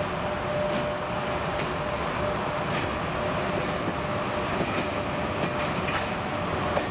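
EP1M AC passenger electric locomotive moving off slowly with its train, running with a steady hum over even rumbling noise. Wheels click over rail joints now and then, more often in the second half.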